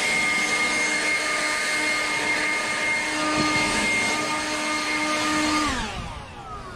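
DeWalt 20V brushless cordless leaf blower running at steady full speed with a rush of air and a high fan whine. Near the end the trigger is released and the whine falls away as the fan spins down.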